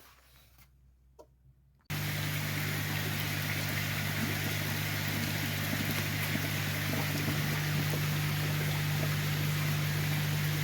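Steady hum of pumps with rushing water, as at koi tanks, cutting in suddenly about two seconds in after near quiet.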